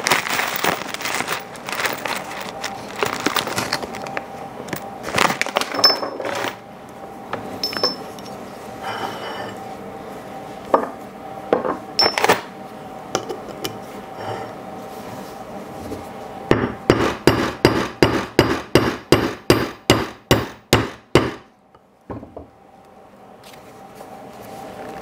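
Hammer striking a rivet setter on a copper rivet set on a steel block: a quick run of about twenty blows, roughly four a second, starting about sixteen seconds in, pounding the burr down onto the rivet post. Before it, irregular clicks and rustling from handling the leather and rivet parts, with a few single taps.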